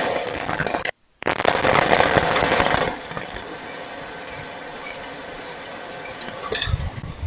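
KitchenAid Heavy Duty stand mixer running, its paddle beating butter, sugar and almond powder in the steel bowl. It is louder for the first three seconds, then settles to a lower, steady run.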